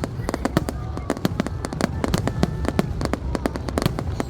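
Aerial fireworks bursting in quick succession, a dense run of sharp bangs and crackles several a second over a steady low rumble.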